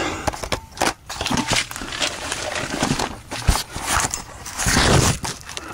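Irregular knocks, scrapes and rustling from a handheld camera being picked up and moved around under a truck.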